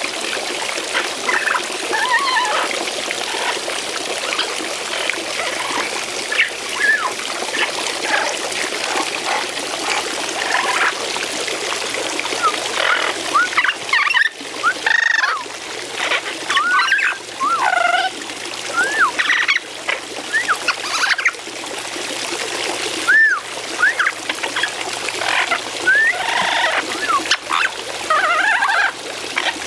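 Garden fountain water splashing and trickling steadily while a bathing parrot gives many short whistles and squawks that bend up and down in pitch. The calls come thickest from about the middle of the stretch onward.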